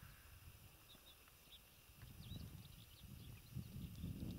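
Faint wind rumble on the microphone, growing from about halfway through, with a few faint, high, distant bird chirps.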